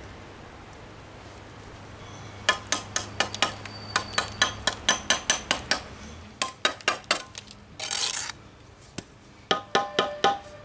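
Brick trowel handle tapping freshly laid bricks down into their mortar bed: runs of quick sharp taps, about four or five a second, starting a couple of seconds in, with a short scrape of the trowel in the middle. The last taps near the end carry a slight ring.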